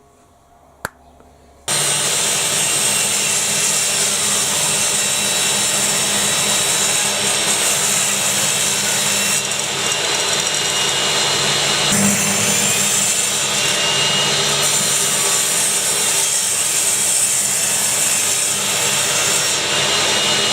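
Power saw ripping the shiplap edges off timber boards: a loud, steady cutting noise with a motor whine that starts suddenly about two seconds in and runs until it cuts off at the end, with a small shift in pitch about midway. Two light clicks come just before it starts.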